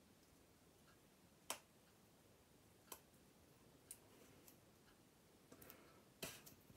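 A few faint, sharp clicks and ticks, a second or more apart, with a short cluster near the end: fingernails picking at the plastic shrink-wrap on a sealed deck of cards.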